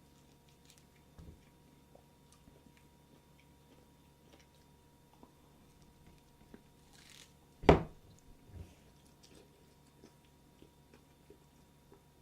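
Faint chewing and small wet mouth clicks of a person eating a lemon, with a short hiss and then one loud dull thump about seven and a half seconds in.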